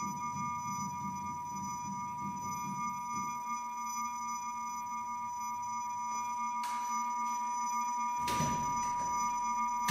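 A steady electronic tone made of two close high pitches, held unchanging like a test tone or monitor drone. A few short, sudden noises come near the end.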